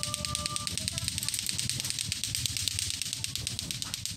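Children's voices in the street over a steady hiss, with a fast, even ticking throughout.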